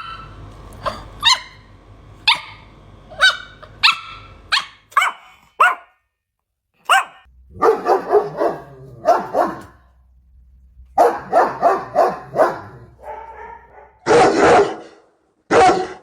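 Dogs barking in a string of separate clips: first a quick run of short, sharp, high barks, then after a brief gap clusters of rapid barks, and a few louder, fuller barks near the end.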